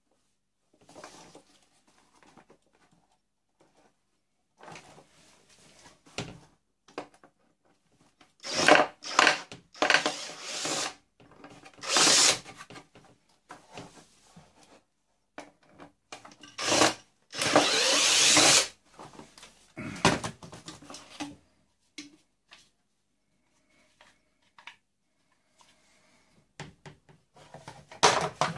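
Cordless drill-driver running in several short bursts to back screws out of a vacuum cleaner's motor housing, mixed with the clatter of plastic parts being handled on a wooden bench.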